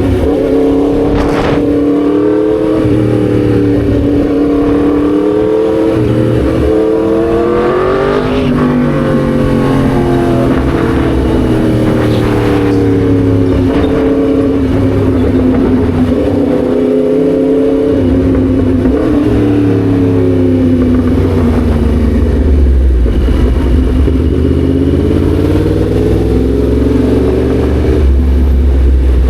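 Yamaha MT-10 SP's crossplane inline-four engine running while riding, its pitch rising and falling repeatedly as it revs and eases off.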